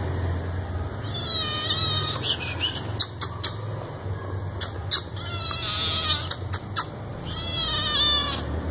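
A kitten meowing: three long, high-pitched wavering cries, with a few sharp clicks between them.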